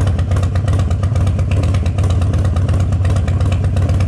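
Harley-Davidson 1200 V-twin engine running steadily, its exhaust pulses coming in a fast, even beat, on its first run after a new ignition switch was spliced in.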